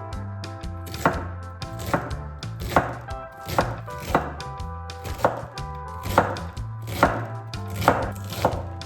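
A kitchen knife chopping vegetables on a cutting board, about one sharp stroke a second, a little uneven.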